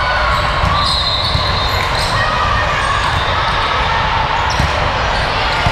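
Echoing gymnasium noise during a volleyball match: balls bouncing and being struck, a few short squeaks, and a background murmur of voices.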